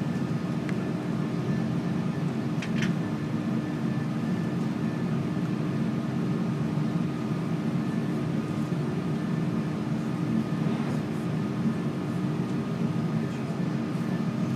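Cabin noise inside a taxiing Airbus A330-300: a steady low hum from the aircraft with a few faint steady tones over it. There are a couple of faint ticks about three seconds in.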